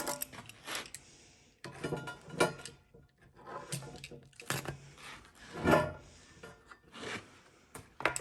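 A file rasping on metal in a string of separate strokes, roughly one a second, with a short pause about a second in.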